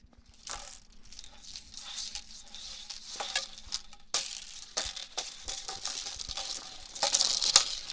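Hula hoop being spun around the body, swishing and rattling with many irregular clicks, louder about seven seconds in.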